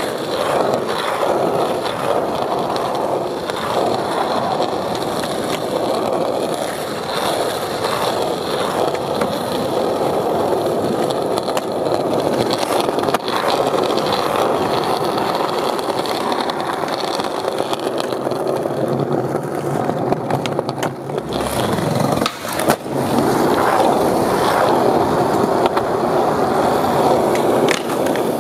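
Skateboard wheels rolling over concrete, with the sharp clack of the board popping and landing a few times, once or twice near the middle and again after about twenty seconds.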